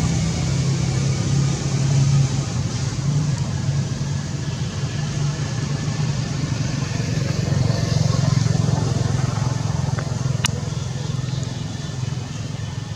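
Steady low engine hum with a noisy background; a single sharp click about ten and a half seconds in.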